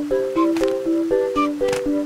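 Cheerful plucked-string tune for a pass-the-parcel game, short notes bouncing up and down in a steady rhythm with light percussion clicks.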